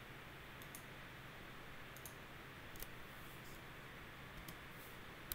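Faint computer mouse clicks, about six of them spread a second or so apart, over a steady low hiss.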